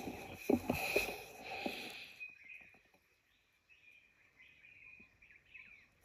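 Rustling handling noise with a few sharp knocks as the air rifle and scope are swung about, then small birds chirping faintly in the trees over a steady high hum.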